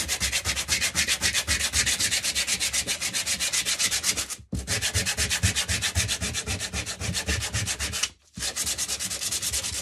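Sandpaper rubbed rapidly back and forth by hand across the top of a thick, cardboard-like glittered sign, a fast, even run of scratchy strokes that stops briefly twice. The sanding knocks the glitter off the surface.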